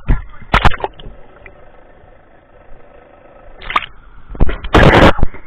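Handling noise on an action camera in a waterproof housing coming up out of the sea: a few sharp knocks on the housing, then a short loud rush of splashing water near the end.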